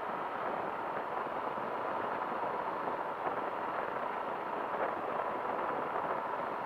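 Powered parachute's engine and pusher propeller running steadily in flight: an even, continuous drone with no breaks, on the low approach to landing.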